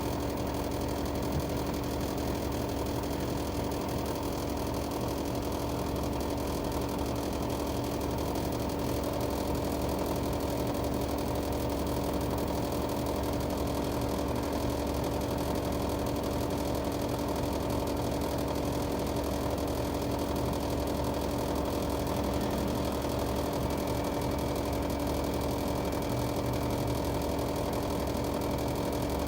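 Panasonic LX-series air conditioner outdoor unit running with a steady hum and a constant pitched drone: the abnormal noise it has made since new. A faint higher whine joins near the end.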